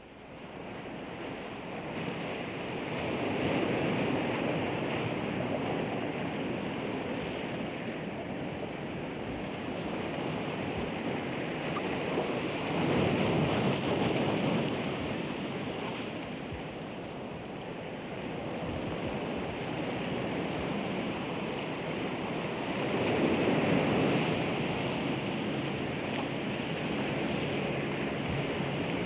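Ocean surf: a steady rush of waves that fades in at the start and swells about every ten seconds.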